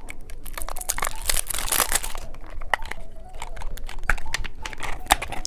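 Candy packaging crinkling and tearing as it is handled and opened, in a run of close, crackly rustles.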